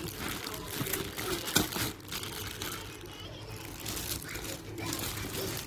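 Rustling and crinkling handling noise with scattered sharp clicks, the loudest about one and a half seconds in, under faint indistinct voices.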